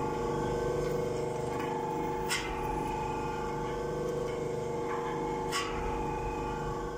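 Drive of a pellet hopper's star-shaped agitator running, turning its shaft with a steady hum. There are two sharp ticks about three seconds apart.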